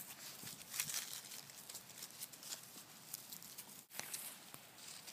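Faint rustling and scattered small clicks of 4-week-old Labrador retriever puppies scrambling and tussling in the grass.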